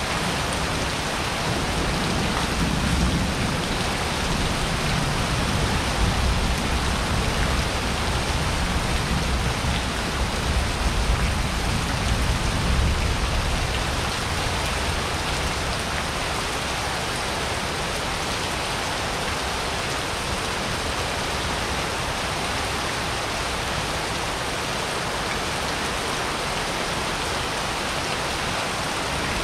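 Steady rain falling during a thunderstorm, with a low rolling rumble of thunder from about a second in until about halfway through, then only the rain.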